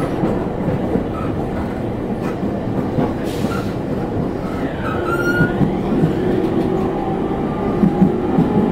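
Interior running noise of an E231 series commuter train at speed: the steady rumble of wheels on rail through the car body. About halfway through, a short whine falls in pitch and then settles into a faint steady hum.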